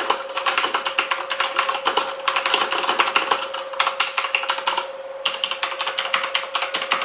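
Corsair Strafe mechanical keyboard with Cherry MX Red switches being typed on fast, a dense run of key clacks broken by two brief pauses.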